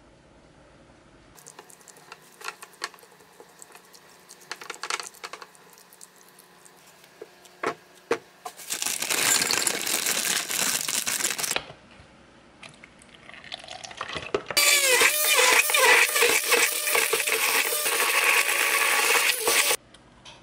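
Light taps and clicks of kitchen prep, then a blender making a banana and berry smoothie. There is a first burst of about three seconds, then a longer run of about five seconds with a wavering motor pitch as it churns the fruit, which cuts off suddenly.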